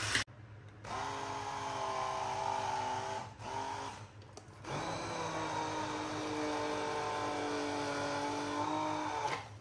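Braun hand-held stick blender running in a beaker of tomato and onion paste. It runs in two goes, a short one starting about a second in, then a brief stop and a longer run of about five seconds.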